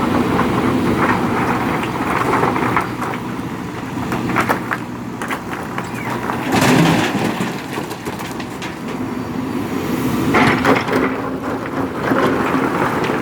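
Diesel engine of a JCB 3DX Super backhoe loader running steadily under load, with bursts of stones clattering and knocking as they are scooped and tipped into a dump truck. The loudest bursts come about halfway through and again a few seconds before the end.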